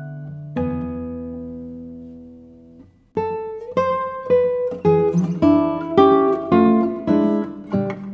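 Instrumental music on a plucked string instrument, like an acoustic guitar: a chord rings out and fades, then after a short pause comes a run of quick single notes.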